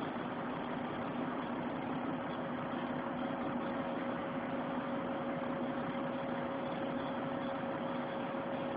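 A vehicle engine idling steadily, heard from inside the cab, a constant hum with two held tones.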